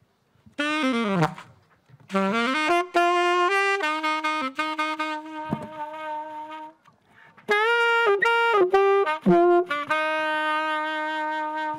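Solo saxophone playing a melody: a short falling run, then a string of held notes, a break of about a second, and a last phrase ending on a long held note.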